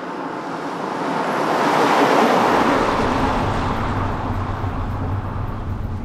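White Mercedes-Benz Sprinter minibus passing on a rural road: its tyre and engine noise swells to a peak about two seconds in, then fades. From about halfway it is joined by the steady low drone of a minibus's engine and road noise heard from inside the cabin.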